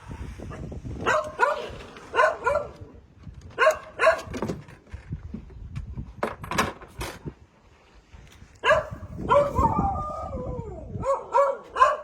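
A dog barking in short, high barks, often two close together, with a drawn-out whining cry that falls in pitch about nine seconds in, then more barks near the end.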